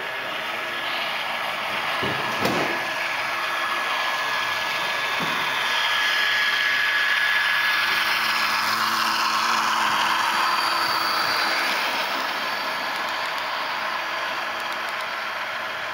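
HO scale model intermodal train, led by an SD70M model locomotive, running past on the track: a steady rumble of wheels and motors with a thin high whine, loudest for several seconds in the middle as the locomotives go by. A short knock about two and a half seconds in.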